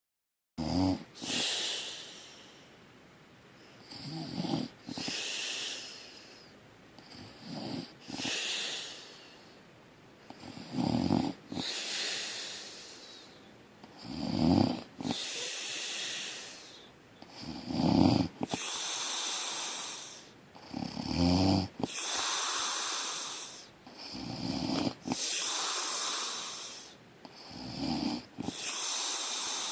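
Loud snoring in a steady rhythm, about one breath every three and a half seconds: a low rattling snore, then a hissing breath.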